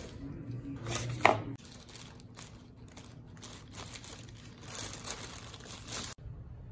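Plastic food packaging crinkling and rustling as a box of frozen waffles is opened and the waffles' clear plastic sleeve is handled. The loudest crackle comes about a second in, and the sound cuts off suddenly near the end.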